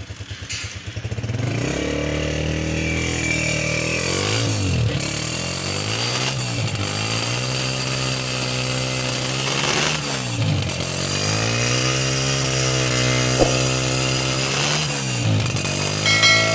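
Honda CG125 single-cylinder four-stroke engine catching with quick pulses in the first second, then revved: it holds raised revs that drop and climb back three times.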